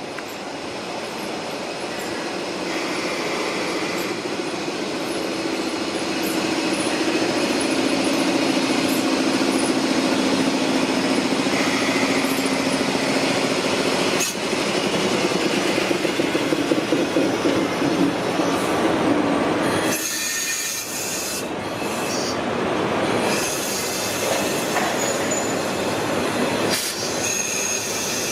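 Electric-hauled freight train running over the rails with wheel squeal. The sound builds to its loudest in the middle and changes abruptly about two-thirds of the way through.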